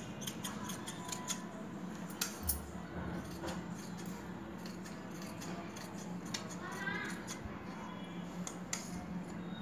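Large steel tailoring shears cutting through blouse fabric along a chalk line, with a series of irregular snips as the blades close.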